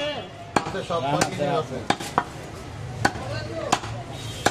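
A large butcher's cleaver chopping goat rib meat on a wooden stump block: about seven sharp blows at uneven intervals.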